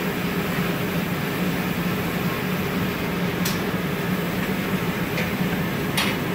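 Steady running noise of a glass shop's furnace and its blowers, with a low hum. A sharp click comes about three and a half seconds in and another near the end.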